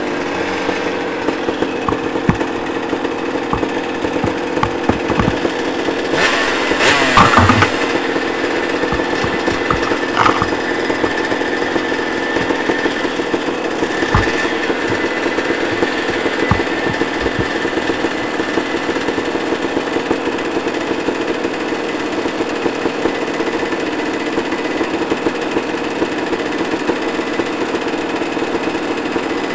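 Dirt bike engine running at low, steady revs as the bike picks its way along a rough wooded trail, heard from a camera riding on the bike or rider. Occasional knocks come through, and there is a louder burst about six to eight seconds in.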